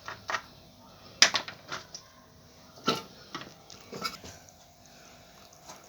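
Kitchen handling sounds: a knife and dishes clicking and knocking about five times at uneven intervals while oranges are prepared, the loudest knock a little over a second in.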